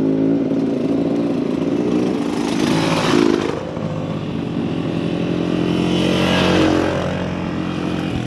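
Dirt bike engines running, a steady idle underneath with engine sound swelling twice, about three seconds in and again near six to seven seconds, as bikes rev or ride past.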